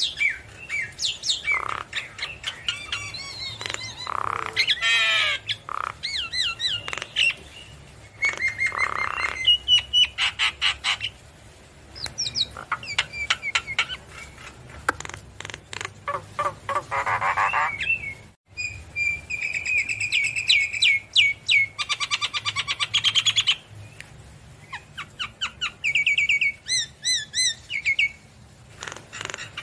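Javan myna singing: a varied stream of whistled notes, fast chattering runs of repeated notes and a few harsh squawks, in bursts with short pauses between.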